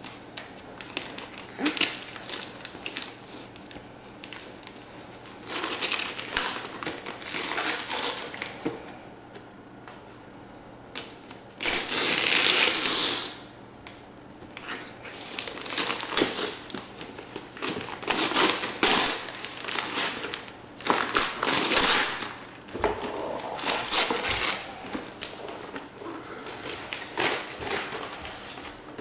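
Gift-wrapping paper being torn and crumpled by hand as a present is unwrapped, in irregular rips and rustles, the loudest a long tear about twelve seconds in.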